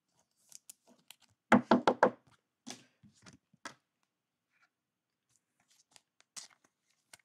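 Trading cards and a clear plastic card holder handled on a tabletop: a quick run of sharp knocks and clicks about a second and a half in, then a few lighter scattered clicks and taps.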